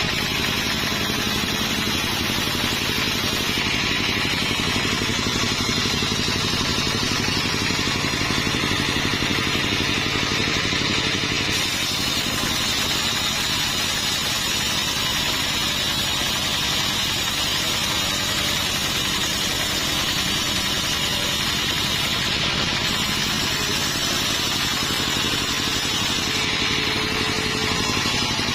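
Sawmill engine running steadily, with a higher hiss over it that grows and fades every several seconds.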